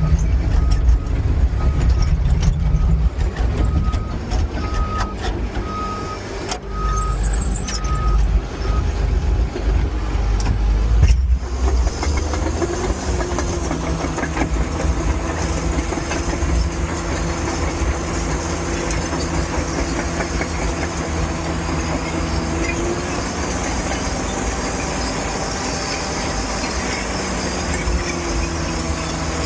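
Bulldozer's diesel engine working, with its reversing alarm beeping about once a second until around 9 s in. After that the engine runs on steadily, its pitch rising and falling near the end.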